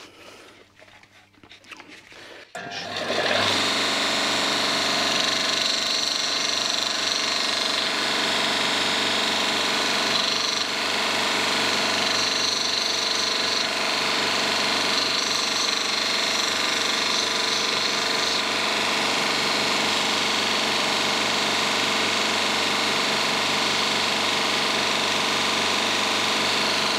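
A grinder starts about two and a half seconds in and runs steadily, grinding down the side stops on a leaf-spring anti-squeak insert so that it will fit.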